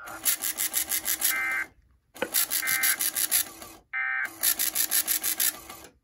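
Emergency Alert System end-of-message data bursts from a TFT EAS 911 decoder: three short electronic warbles about 1.3 seconds apart, which mark the close of the alert. Around them is a louder harsh rasping of about eight pulses a second, broken by short silences.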